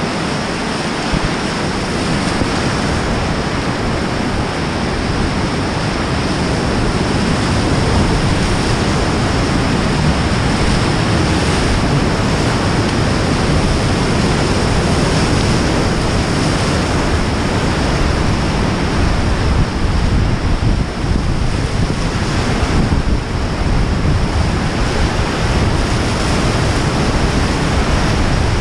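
Loud, steady rush of a whitewater rapid at high water, breaking waves all around a river raft, with wind noise on the microphone.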